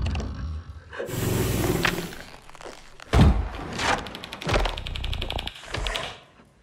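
Heavy off-screen thuds and knocks: a noisy crash with a hiss about a second in, a loud thud about three seconds in, then more knocks over a fast, even clicking, dying away near the end.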